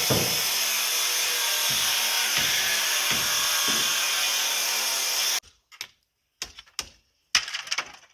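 A power tool running with a steady, loud, hissing noise, with a few dull knocks in the first seconds. It cuts off abruptly about five seconds in, leaving a few short clicks and knocks.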